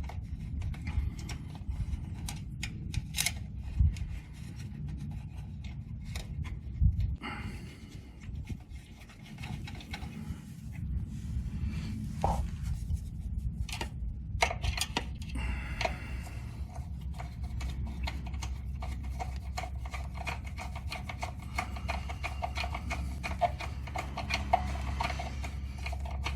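Handling noises from hands-on work: rubbing and scraping with scattered sharp clicks, over a steady low hum.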